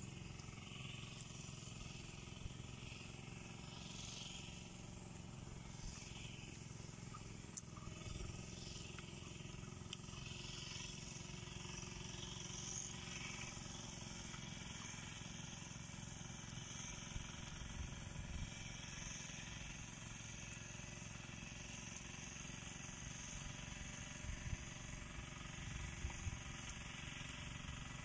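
Steady low outdoor rumble, with a few short crunches in the last few seconds as raw jicama slices are bitten and chewed.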